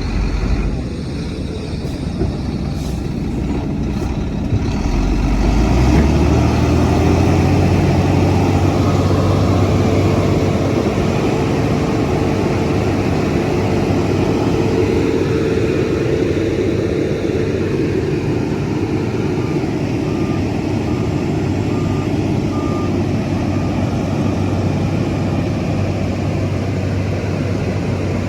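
Heavy diesel earthmoving machinery running, rising in load about five seconds in with a steady whine over the engine. About twenty seconds in, a reversing alarm beeps a handful of times.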